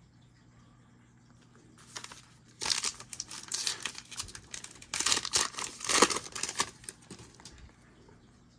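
A 2021 Panini Mosaic Baseball card pack's wrapper being torn open and crinkled. There is a crackling rustle of several bursts, starting about two seconds in and lasting about five seconds.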